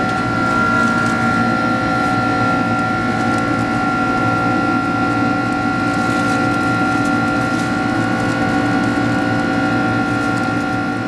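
Cabin noise of a Boeing 767's Rolls-Royce RB211 turbofans at climb power, heard from a window seat by the wing: a steady rush with several held whining tones, the clearest a high whine.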